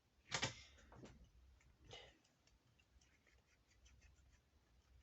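Faint small clicks and ticks from handling laptop parts and screws, with one louder knock about half a second in.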